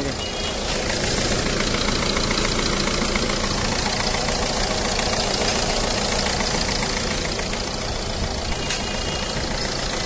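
Ford Figo diesel engine idling with the AC compressor engaged, under a steady rushing noise that grows louder about a second in, while AC refrigerant gas is topped up from a can through gauge hoses.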